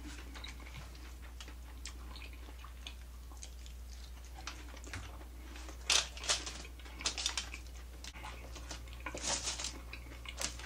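Close-miked eating sounds: quail and fried food picked apart by hand and chewed, heard as quiet scattered clicks and crackles, bunched in a few short clusters from about six seconds in.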